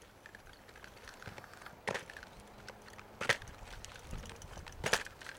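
Three sharp knocks, about a second and a half apart, over faint outdoor background noise.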